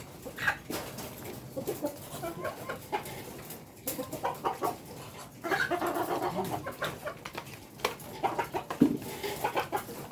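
Indonesian village chickens (ayam kampung) clucking, with many short taps and clicks among the calls; the sounds get busier and louder about halfway through.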